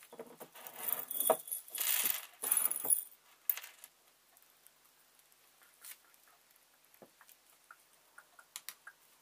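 A hand rummaging through small hard parts in a ceramic mug, a clattering rattle for about three seconds, then a few faint scattered clicks as the parts are handled.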